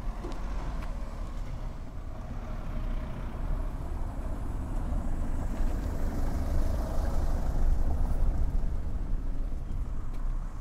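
A car driving past over a cobbled street, its engine rumble and tyre noise growing louder to a peak about two-thirds of the way through, then falling away near the end.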